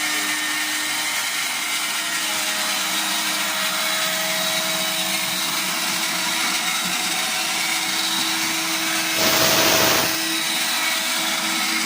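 Electric grain crusher running steadily, grinding grain into compound feed, with a constant motor hum. A louder rushing surge lasts about a second near the end.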